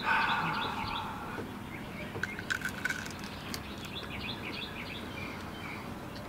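Small birds chirping throughout, busiest in the first second. A few sharp crunches about two to three and a half seconds in: a man chewing a whole cooked sand flea (mole crab), shell and all.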